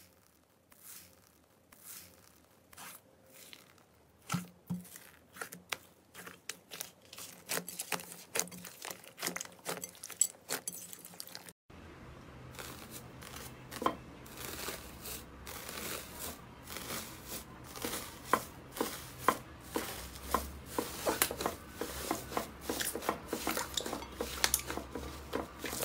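Hands working slime, making crisp crackles and small tearing sounds: sparse at first from fluffy cloud slime, then, after a cut about halfway through, denser crinkling and crackling from slime covered in purple foil being pressed and squeezed, over a faint low hum.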